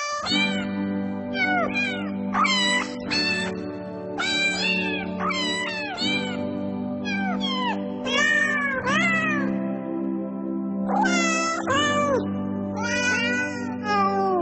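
Cats meowing over and over, a dozen or so short, high meows in quick succession, over background music with held notes.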